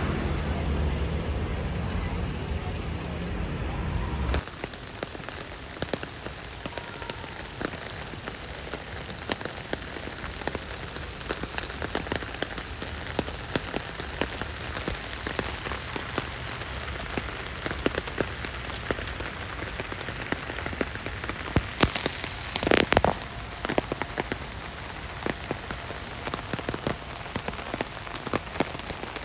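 Rain pattering on window glass, a dense run of small irregular taps heard from inside a bus, with a brief louder whoosh about two-thirds of the way through. The first four seconds are wet street traffic rumbling before an abrupt cut.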